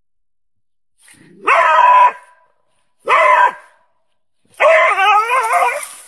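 Dog barking: a bark about a second and a half in, a shorter one about three seconds in, and a longer bark with a wavering pitch from about four and a half seconds in.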